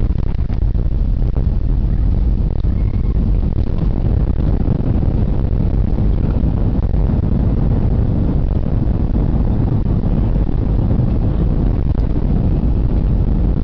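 Airbus A320 on its landing roll, heard from inside the cabin: a loud, steady low rumble of engines, wheels and airframe.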